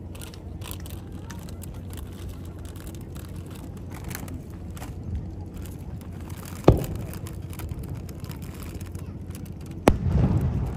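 Fireworks going off: two sharp bangs about three seconds apart, the second followed by a brief spell of rumbling noise.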